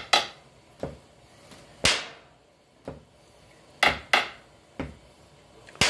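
A slow, uneven beat of sharp knocks on a hard object, some louder and ringing briefly, roughly one to two seconds apart.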